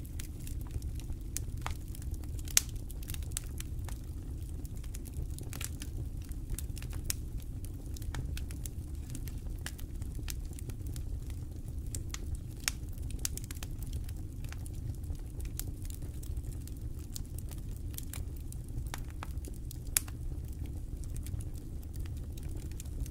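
Wood campfire crackling, with irregular sharp pops throughout over a steady low rumble. A few pops stand out louder, one about two and a half seconds in and one near twenty seconds.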